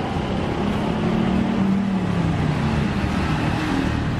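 Street traffic: a motor vehicle's engine running nearby, a low hum that dips slightly in pitch about halfway through, over the general noise of a busy street.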